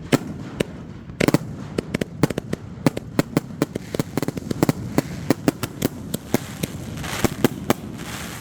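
Fireworks going off: a rapid, irregular string of sharp bangs, several a second, with a crackling hiss near the end.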